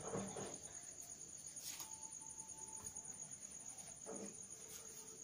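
Faint, steady high-pitched cricket trilling with a pulsing texture. A short faint hum comes in for about a second, about two seconds in.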